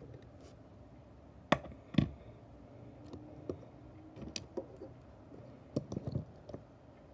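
Small clicks and taps of die-cast toy trucks being handled and set down: two sharper knocks about a second and a half and two seconds in, then scattered light clicks.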